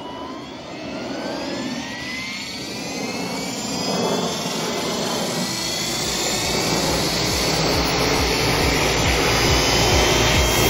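Thunder Tiger Mini Titan electric RC helicopter spooling up for takeoff: a rising whine from the motor and rotor head that grows steadily louder. A low pulsing comes in during the second half.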